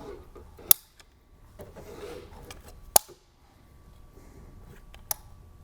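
Caulking gun squeezed to lay sealant, its trigger and ratchet giving three sharp clicks about two seconds apart, with faint handling rustle between.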